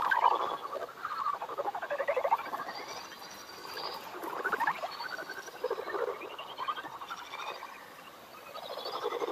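Lesser horseshoe bat echolocation calls made audible by a bat detector: rapid crackling, chittering pulse trains that sweep up and down in pitch, coming and going as bats pass.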